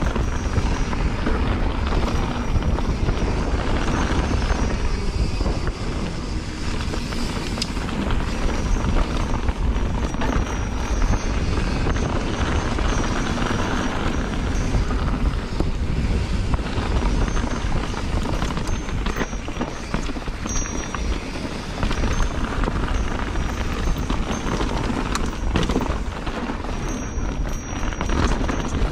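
Wind buffeting an action camera's microphone as a mountain bike rolls fast down a dirt trail, with tyre noise and occasional sharp knocks and rattles from the bike over bumps.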